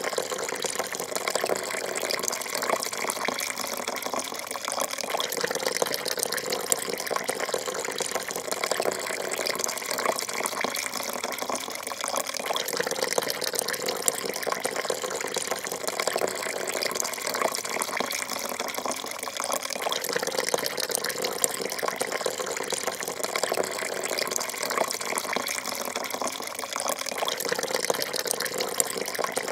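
Coffee pouring in a thin, unbroken stream into a porcelain cup: a steady splashing trickle of liquid into liquid.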